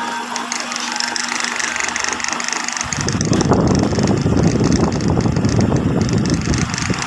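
High-speed sewing machine: its motor hums steadily, then about three seconds in it starts stitching, a loud, fast mechanical rattle that runs for about four seconds and stops near the end.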